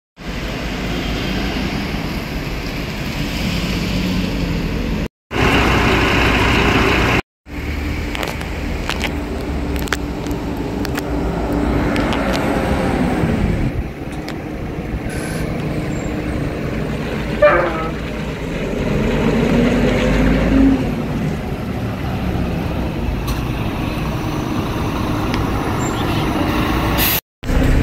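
Double-decker bus engines and street traffic running at a bus terminus, a steady mechanical drone. A brief sharp sound stands out about seventeen seconds in.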